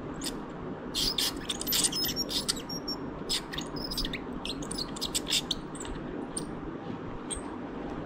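Ultrasonic dental scaler tip working against a dog's tartar-covered teeth, giving short, high-pitched chirps and scrapes each time it bites on the hard surface. They come thickest in the first half, over a steady low hum.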